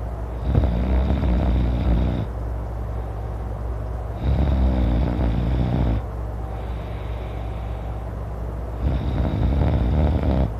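A man snoring loudly: three long snores about four seconds apart, each lasting nearly two seconds, over a steady low hum.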